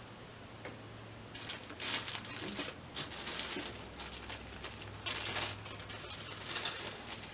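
Rustling and small clicks of hands rummaging through computer parts, screws and packaging, in irregular bursts that begin about a second in, over a faint steady low hum.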